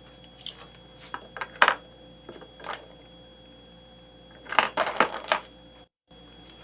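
Light metallic clicks and clinks of .223 brass cartridge cases being handled in and out of a caliper's comparator, a few scattered ones early and a quick cluster of clinks about four and a half to five and a half seconds in.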